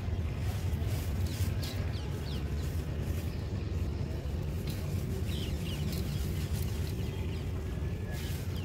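Dry mud lumps crumbled by hand, grit and dust trickling into a basin of dry soil: faint soft crackles over a steady low rumble.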